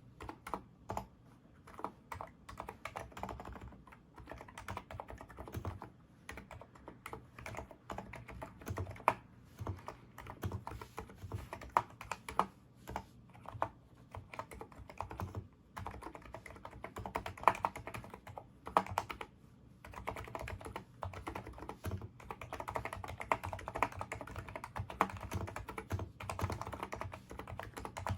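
Typing on a NIZ Micro82 keyboard with 35 g electrostatic capacitive switches: a continuous run of quick key presses, with a few brief pauses.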